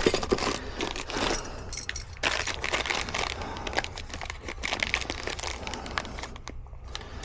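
Plastic packaging crinkling and rustling, with small clicks, as packaged tube latches are handled and rummaged through.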